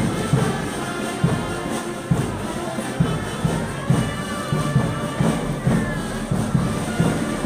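Band music: wind instruments holding tones over a steady bass-drum beat.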